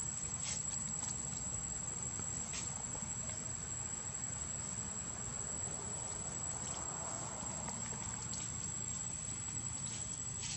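Steady high-pitched drone of insects, with a low rumble underneath and a few faint clicks.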